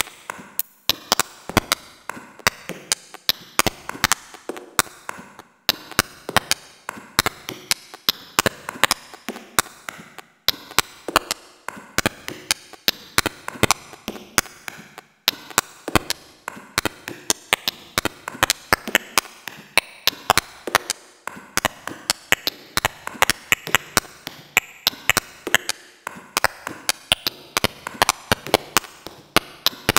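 Experimental noise music made of a dense, irregular stream of sharp clicks and taps, several a second, broken by a few brief gaps.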